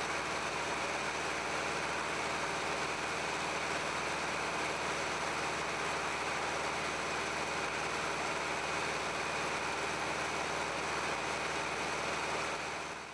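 An engine or machine running steadily, with an even hum and hiss that fade out right at the end.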